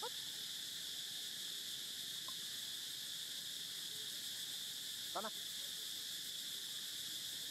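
Steady high-pitched drone of an insect chorus, with two short chirping calls, one right at the start and one about five seconds in.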